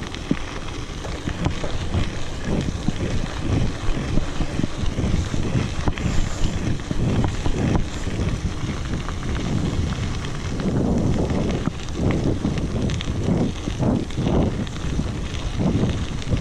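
Wind buffeting the microphone of a camera on a moving mountain bike, a low, gusty rumble with the bike's tyres rolling over the dirt trail beneath it; the gusts surge harder in the second half.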